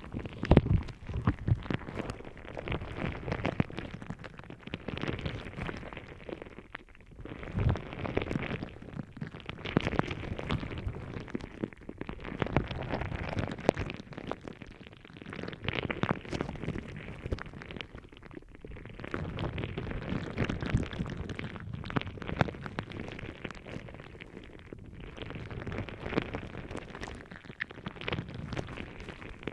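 A gel ball pressed, squished and rubbed against a binaural microphone's ear, giving close, crackly squelching noises in waves of a few seconds with short pauses between them.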